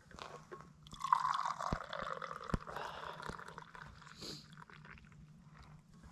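Liquid pouring from a vacuum flask into a stainless steel cup. The pour starts about a second in and tapers off about three seconds later, with a couple of light clicks during it.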